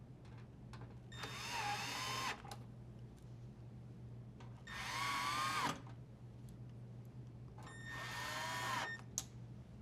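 Cordless drill driver running three screws back into the dryer door panel, one after another, each a whine of about a second.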